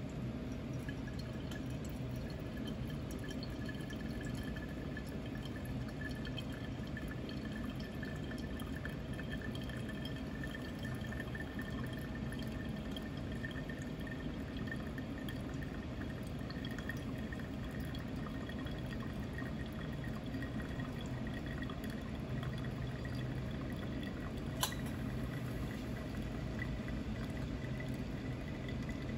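Brewed coffee dripping from a paper-filter pour-over dripper into a glass server while the coffee bed blooms between pours, over a steady low room hum. A single sharp click near the end.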